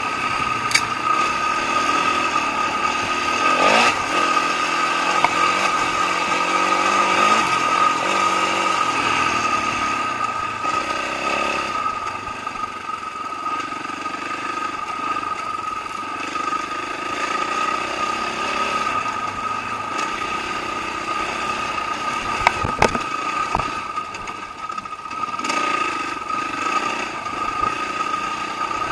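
Dirt bike engine running while the bike is ridden along a trail, its pitch rising and falling as the throttle opens and closes, over a steady high whine. A few sharp knocks stand out, two of them close together a little past the middle.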